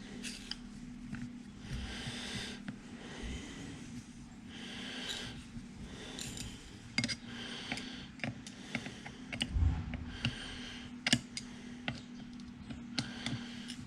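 Small metal clicks and scraping of a Torx driver turning the new screws into a turbocharger center housing, in short repeated strokes with sharp ticks in between and a thud near the middle. A steady low hum runs underneath.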